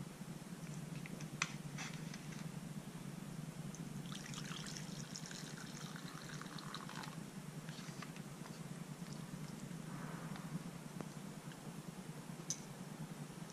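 Malatang broth ladled with a metal spoon from a takeaway container into a ceramic bowl: liquid pouring and trickling for about three seconds in the middle, its pitch sliding lower as it ends, with a shorter pour later. There are light clinks of the spoon and chopsticks against the bowls, and a steady low hum underneath.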